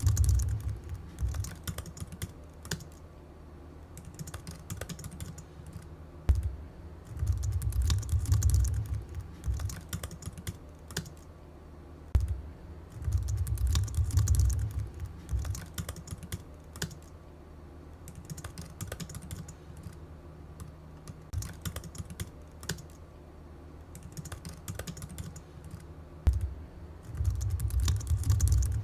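Rapid, irregular clicking much like keys being typed, with a low rumble that swells up every several seconds.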